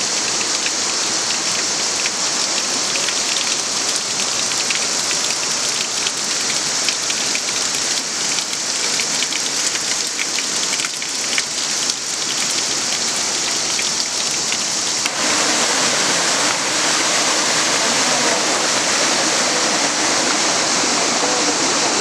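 Running water from a mountain stream flowing over rocks: a steady rushing hiss. The sound changes a little in character about fifteen seconds in.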